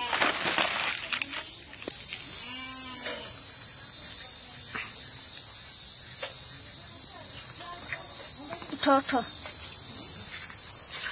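Insects droning steadily in one loud, shrill, high band, which comes in abruptly about two seconds in. Before it, a brief splashing as the slaughtered rooster is dunked into a bowl of hot water for scalding.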